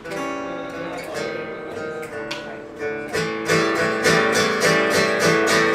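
Acoustic guitar strumming blues chords in an instrumental break between sung verses, the strokes growing louder and more driving about three and a half seconds in.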